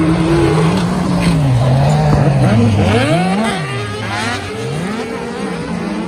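Several racing buggies on a dirt track, their engines revving hard and dropping with gear changes, several overlapping engine notes rising and falling as the pack goes by. Loudest in the first half, easing off a little after about four seconds.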